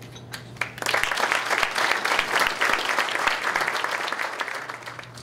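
Audience applauding, starting about a second in and dying down near the end.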